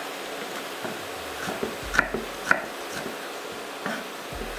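Chef's knife chopping onion on a wooden cutting board: a few separate, uneven knocks of the blade on the board. A steady frying sizzle runs underneath.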